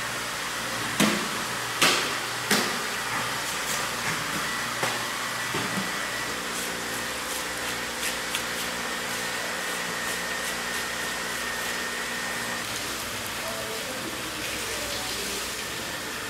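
Heavy cleaver chopping into a giant bluefin tuna's head: three sharp strikes in quick succession, then lighter knocks. A steady machinery hum runs underneath, with a faint high whine for several seconds in the middle.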